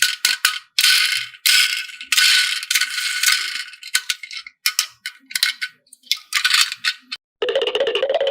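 Small hard objects rattling and clicking in a string of short, irregular bursts, as if handled or shaken. Near the end a steady buzzing sound starts.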